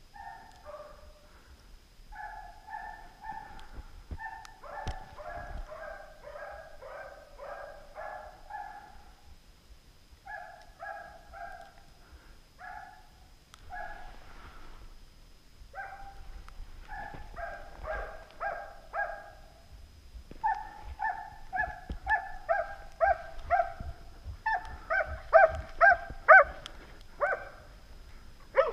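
Hunting dogs barking in quick runs, at least two voices overlapping at times. The barks get louder over the last several seconds.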